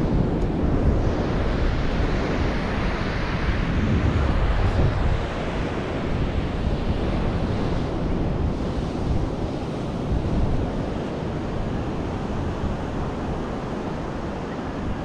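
Wind buffeting the microphone: a steady rushing roar, heaviest in the bass, easing a little in the second half.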